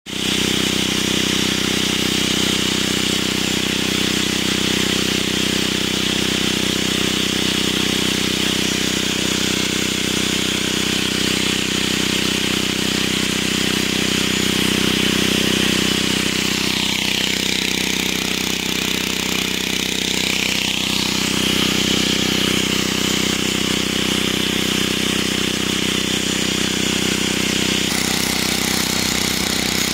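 Electric angle grinder running with its disc pressed against a steel rail, grinding off the burr (the extra edge) on a railway point rail. Steady motor whine mixed with the hiss of the disc cutting metal, the tone shifting briefly in the middle.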